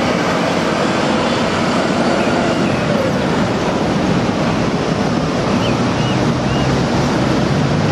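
City street traffic with a red London double-decker bus driving past, its engine a low steady hum. Heavy wind noise on the microphone covers much of it.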